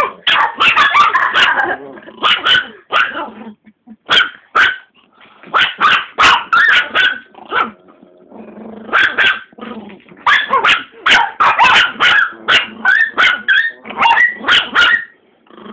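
Dogs barking excitedly in quick runs of sharp barks, with a couple of short lulls.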